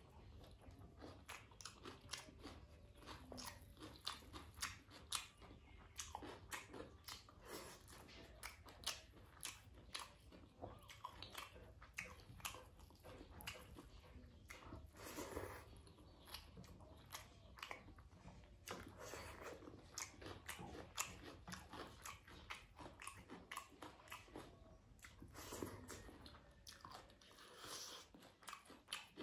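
Close-miked chewing and lip-smacking of a mouthful of rice and vegetables. It comes as many short, quiet, wet clicks and crunches at an uneven pace, with a few louder smacks.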